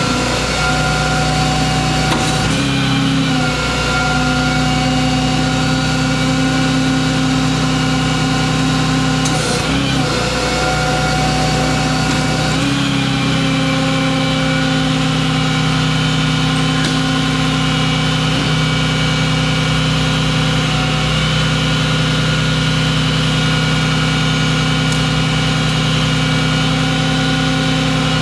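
Service truck engine running steadily at a raised idle, its pitch shifting briefly about two seconds in and again around ten and thirteen seconds.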